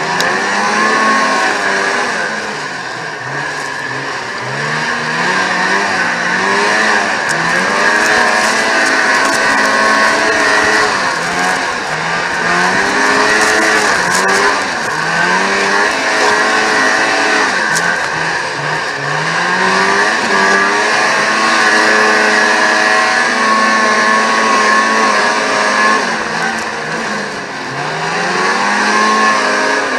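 Vintage racing snowmobile's two-stroke engine at full race, its pitch rising and falling again and again as the throttle is worked through the laps, over a steady rushing noise.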